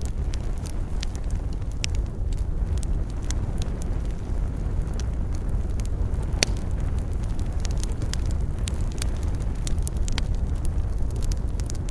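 Campfire crackling, with irregular sharp pops over a steady low rumble; the loudest pop comes about halfway through.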